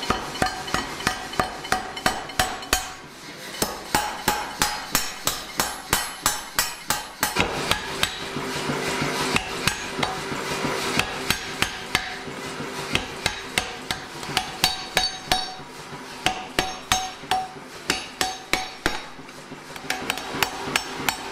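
Mechanical power hammer striking a red-hot steel bar in quick, even blows of about three a second, in runs broken by short pauses. The smith is drawing the bar down into a short tapered punch.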